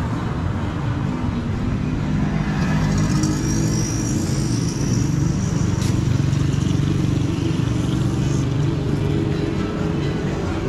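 Street traffic: motor vehicles, including a motorcycle, driving past, with music playing.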